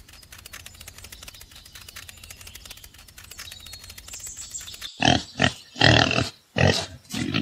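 Faint rapid ticking in the background, then about five seconds in a run of five loud pig grunts, a dubbed farm-animal sound effect.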